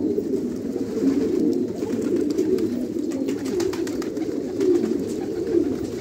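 Many domestic fighter pigeons cooing together, a steady, continuous chorus of overlapping low coos with a few faint clicks mixed in.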